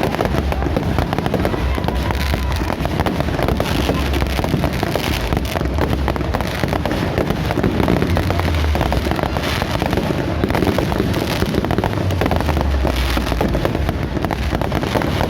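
Fireworks display: rapid, continuous crackling and popping with no pauses, over a low rumble.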